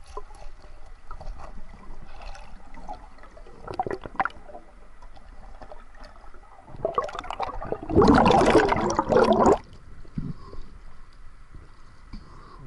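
Muffled underwater gurgling and bubbling heard through a camera held under river water, with small crackles and knocks. About seven seconds in comes a much louder rush of water and bubbles that lasts about two seconds and then stops suddenly.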